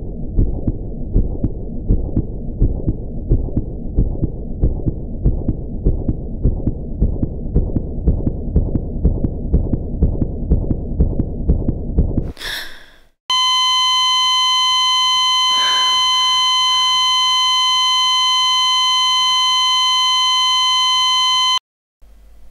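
Heartbeat sound effect: low, evenly repeating thumps for about twelve seconds. It fades out with a short whoosh and gives way to a continuous, steady high electronic tone that cuts off suddenly after about eight seconds.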